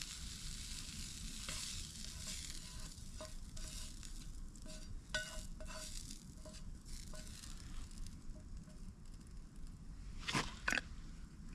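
Chopped sausage meat sizzling as it fries in a pan, with a utensil stirring and knocking against the pan; two louder scrapes come close together near the end.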